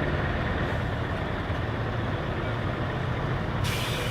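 Heavy truck engine running steadily with a low rumble; a hiss joins in near the end.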